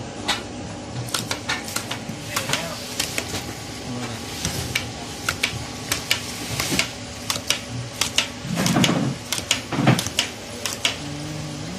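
Carton packaging line machinery running: a steady machine hum with irregular sharp clicks and clatter as cartons move along the conveyor.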